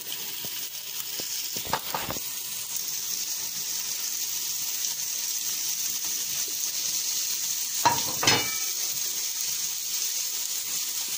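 Raw minced-meat chapli kebab patties sizzling on a hot electric grill plate as they are laid on one by one. The sizzle grows stronger after the first couple of seconds. A few sharp knocks come about two seconds in and again about eight seconds in.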